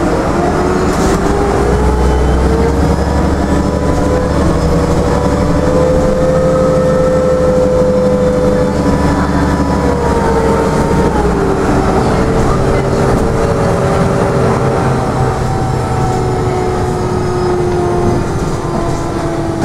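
The cabin of a Karosa B961 articulated diesel city bus under way. The drivetrain whine rises in pitch as the bus gathers speed and holds steady. About ten seconds in it falls, and the heavy low rumble eases soon after, as the bus slows and coasts toward a stop.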